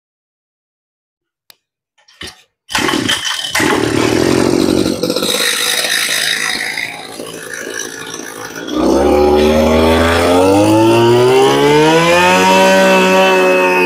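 After near silence, a Mitsubishi 23 cc two-stroke brush cutter engine comes in about three seconds in and runs. About nine seconds in it is throttled up: its pitch climbs steadily for a few seconds and then holds at high revs.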